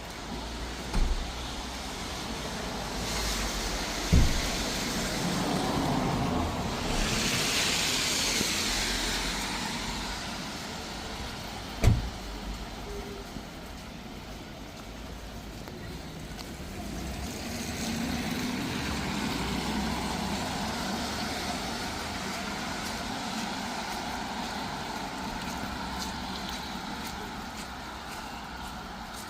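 Road traffic on a wet city street: vehicles go by in two long swells of tyre hiss, one in the first third and a longer one in the second half. Three short dull thumps stand out, the loudest about twelve seconds in.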